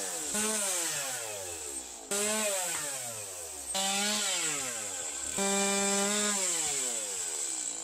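Gasoline chainsaw cutting the ends of log rafters, in four short cut-together stretches. Each stretch starts with the engine at high revs, then its pitch slides steadily down.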